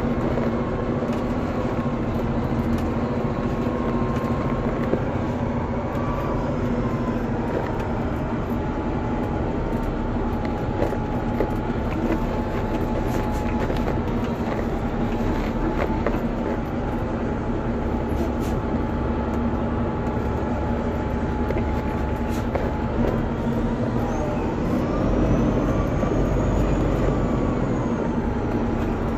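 Heavy-duty tow truck's diesel engine running, heard from inside the cab: a steady low drone with a faint whine that wavers a little in pitch. It grows somewhat louder near the end.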